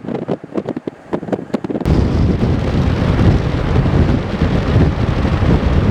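Wind and road noise on a camcorder microphone held out of a moving van's window, at first a quieter crackling. About two seconds in it switches abruptly to loud, low, rumbling wind buffeting on the microphone.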